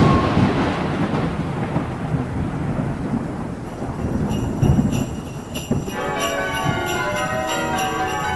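A loud thunder crack at the start that rolls into a long rumble over a rain-like hiss. About six seconds in, a peal of bells starts ringing over it.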